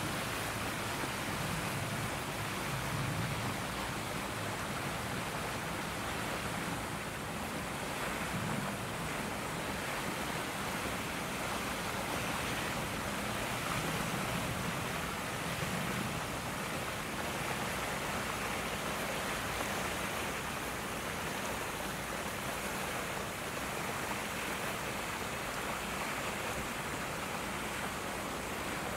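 Steady rushing noise of wind on the microphone, with low gusty rumbles now and then.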